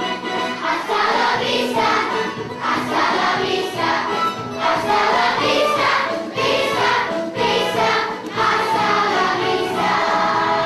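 School chorus of young students singing together with accompaniment, in sustained, steady phrases.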